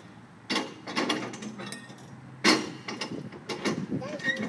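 Two sharp metallic clanks about two seconds apart, each followed by rattling, from a slowly moving flatbed truck loaded with strapped storage containers.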